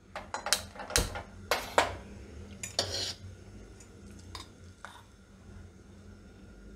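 Metal kitchenware clattering: an iron wok and a metal spoon knocking and clinking several times in the first three seconds, then a few lighter ticks, as solid ghee is put into the wok to heat.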